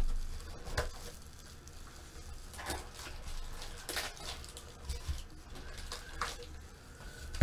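Foil-wrapped 2015 Panini Prizm football card packs crinkling and rustling as they are lifted out of their opened cardboard box and handled, in a few short, scattered bursts.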